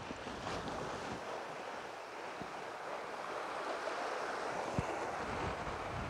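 Sea waves washing steadily against a rocky shore, with wind rumbling on the microphone; a faint sharp click near the end.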